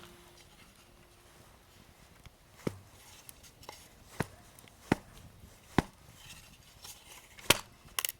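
Wood fire crackling, with about six sharp, irregular pops and cracks of burning firewood, loudest near the end.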